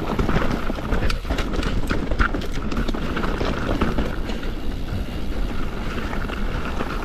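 Mountain bike ridden over a rough dirt and rock trail: tyres rumbling and crunching, with a constant rattle and clatter of the bike over bumps, and low wind rumble on the ride camera's microphone.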